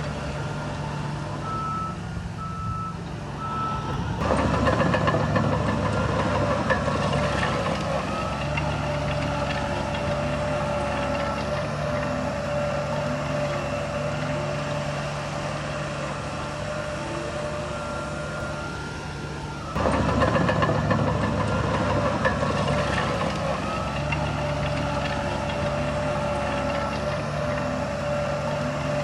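Heavy diesel machinery running, with a reversing alarm beeping in a regular series. The engine noise jumps up sharply about four seconds in and again around twenty seconds in, then settles to a steady run.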